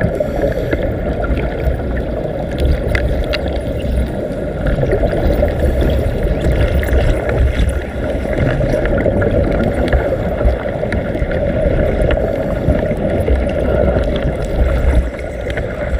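Continuous underwater bubbling and gurgling with many scattered small crackles, as heard during underwater welding.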